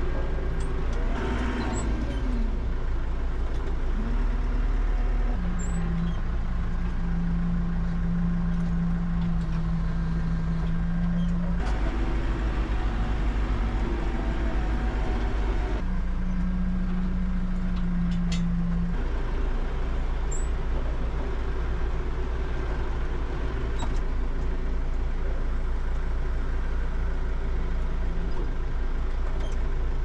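New Holland 4030 tractor's diesel engine running, heard from inside the cab as the tractor drives. A louder steady hum comes in twice over the engine sound, once for about six seconds and once for about three.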